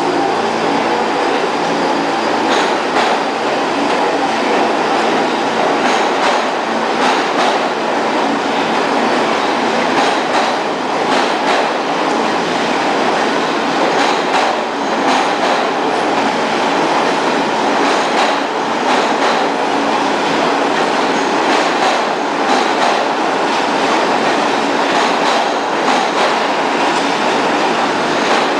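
An R46 New York City subway train running past a platform at speed: a loud, steady rumble of steel wheels on rail with repeated clacks over the rail joints.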